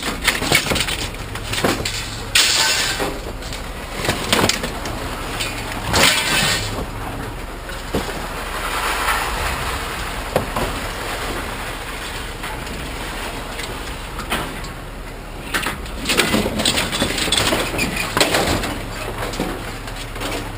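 Scrap metal being handled, with irregular clanks, knocks and rattles, some in quick clusters, over a steady low hum.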